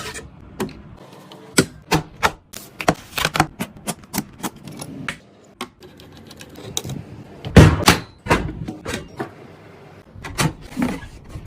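Irregular sharp clicks and knocks of computer hardware being handled and fitted together, with a louder knock and rustle about two-thirds of the way through.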